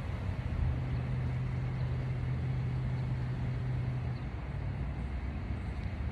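Steady low rumble of a vehicle engine, with a low drone that comes in about half a second in and fades about four seconds in.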